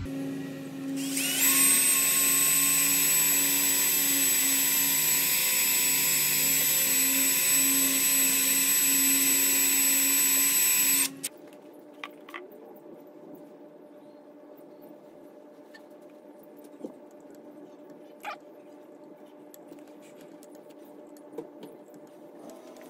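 Cordless drill running steadily with a high whine, drilling a rail mounting hole, for about ten seconds, then stopping suddenly. Afterwards come a few faint clicks of hand work at the hole.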